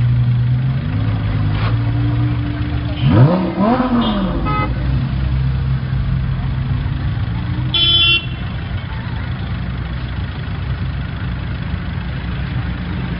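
Car engines running steadily, one revving up and falling back about three seconds in, and a short car-horn toot about eight seconds in.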